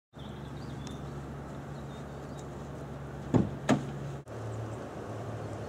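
Steady low hum with two sharp knocks about a third of a second apart, a little over three seconds in. Just after them the hum drops out briefly and comes back slightly lower in pitch.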